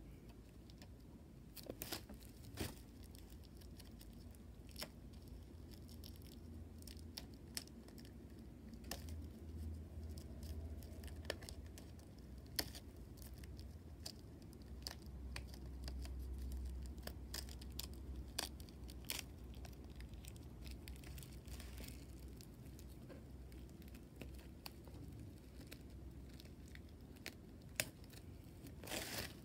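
Plastic shrink-wrap being picked at and peeled off a hardcover book: scattered faint crackles and crinkles, then a louder burst of crinkling near the end.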